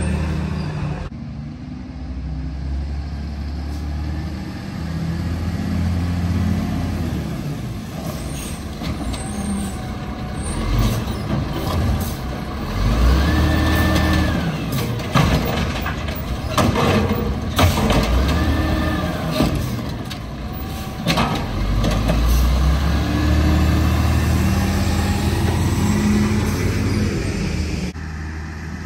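Diesel engine of a 1999 Volvo garbage truck with an Amrep automated side-loader, running and twice revving up and back down as the hydraulic arm lifts and empties a cart, with a run of clanks and bangs as the cart is dumped.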